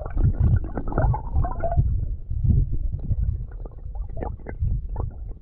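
Water heard through a submerged camera: a muffled, uneven low rumbling with small clicks and bubble pops as a hand moves just under the surface.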